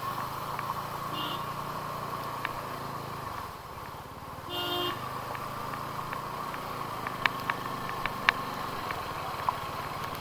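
Single-cylinder engine of a TVS Apache RTR 200 4V motorcycle running at low speed in traffic. A vehicle horn honks briefly a little under halfway through, and a few sharp ticks come near the end.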